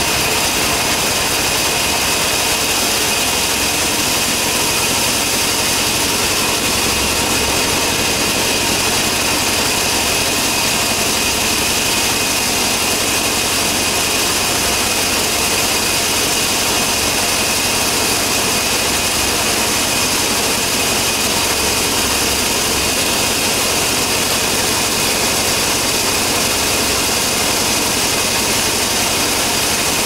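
Engine-driven portable band sawmill running steadily.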